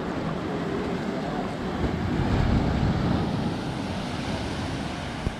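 Steady rushing of surf and wind on the microphone, swelling a little about halfway through.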